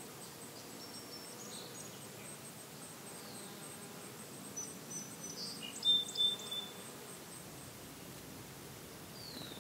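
Summer marsh insects: a steady buzzing hum with a faint high cricket trill that fades out after about seven seconds. A few short, high bird calls come in the middle, the loudest about six seconds in.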